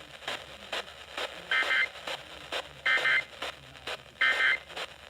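Three short bursts of EAS end-of-message data tones, the warbling two-tone SAME code, about a second and a half apart. They are heard over crackling radio static and signal that the alert broadcast has ended.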